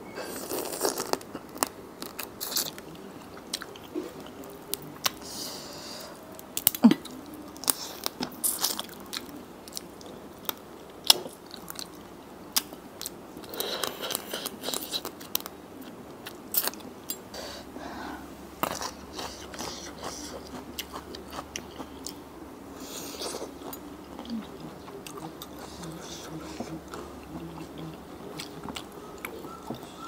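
Close-miked chewing and biting of a spicy Thai seafood salad with shellfish and fresh greens, with many short, sharp crunches spread throughout as the mouthfuls are bitten and chewed.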